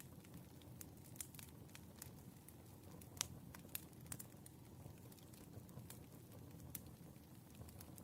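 Wood fire crackling faintly, with irregular sharp pops and snaps over a low steady rumble; one louder pop about three seconds in.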